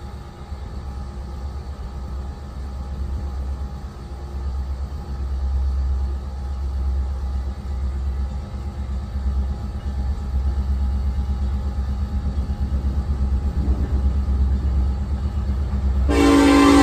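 Union Pacific diesel locomotive approaching: a low rumble of engine and wheels that grows steadily louder. Near the end its horn suddenly sounds loudly.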